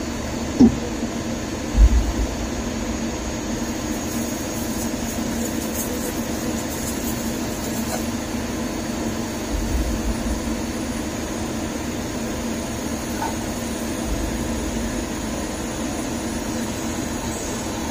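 Mazak Integrex 200 SY CNC turning centre machining under coolant: a steady machine hum with the hiss of coolant spray, and a couple of dull thumps in the first two seconds.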